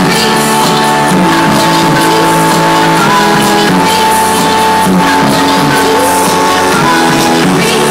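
Electronic dance music from a DJ set, played loud over a festival sound system and recorded on a cell phone. It is continuous, with held synth notes, and sounds thin, with little bass.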